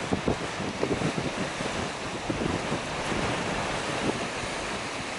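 Gale-force northeast wind buffeting the microphone in irregular gusty rumbles, over the steady wash of storm-driven surf breaking on the shore.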